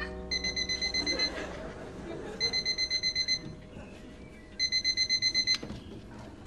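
Bedside electronic alarm clock going off: bursts of fast, high-pitched beeps, about ten beeps a burst, each burst lasting about a second with a pause of about a second between, three times.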